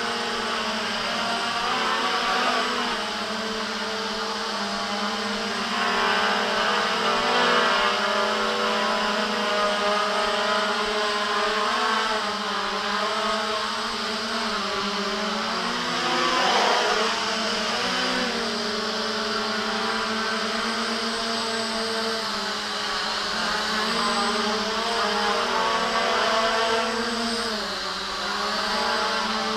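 Small JJRC X1 quadcopter's brushless motors and propellers whining in flight, the pitch rising and falling as the throttle changes.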